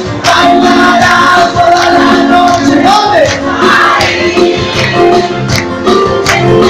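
Music: a song with singing voices over a steady percussive beat.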